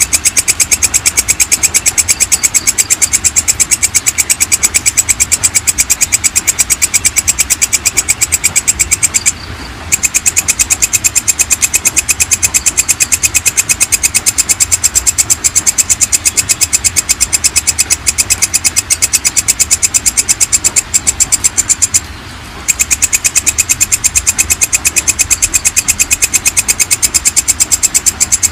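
Belalang kecek (walang kecek) bush cricket calling: a loud, high-pitched, fast and even train of rasping pulses that breaks off briefly twice, about a third of the way in and again about three-quarters of the way through.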